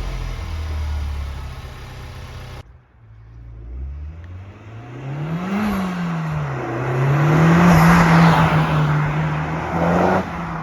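Honda Civic Type R engine, on its stock airbox with PRL intake tubing, heard in drive-bys. First its note dies away, then after an abrupt cut about two and a half seconds in the revs climb, dip as it shifts gear, and hold steady as the car passes, loudest about three-quarters of the way through.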